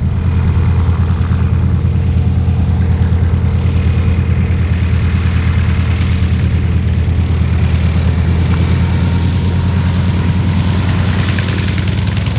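North American T-28B Trojan's Wright R-1820 nine-cylinder radial engine running at low taxiing power, a steady, low-pitched drone with propeller noise.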